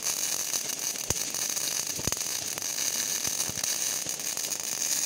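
CO2 MIG (gas metal arc) welding arc burning steadily as a straight-line bead is run on a flat plate: a continuous hiss and crackle with scattered sharp pops.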